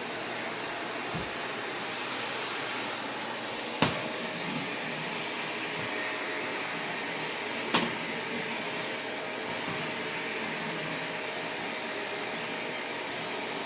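Vacuum cleaner running steadily, with two sharp knocks about four seconds apart.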